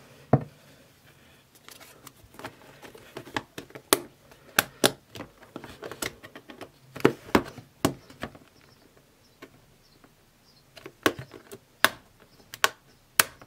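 Irregular sharp clicks and taps of hard plastic as a clear lid is handled and pressed onto a small square plastic spider enclosure.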